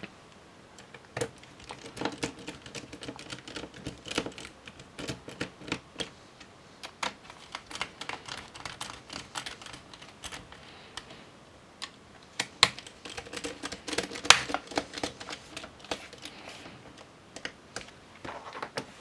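Irregular light clicks and ticks of a small Phillips screwdriver and fingers working on a laptop's plastic base panel as its screws are driven in. The clicks are loudest in a cluster about two-thirds of the way through.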